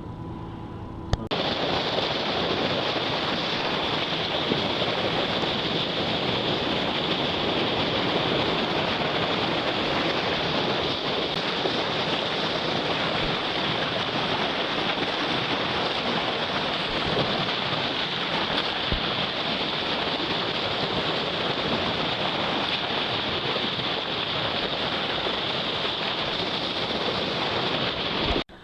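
Steady, loud rush of wind and sea water aboard a boat under way, starting suddenly about a second in and cutting off abruptly near the end.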